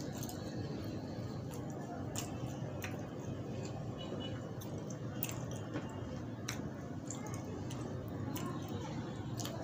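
Chewing, and the soft squish of fingers working flatbread into chana dal and bottle gourd on a plate, with a few short sharp clicks along the way over steady background noise.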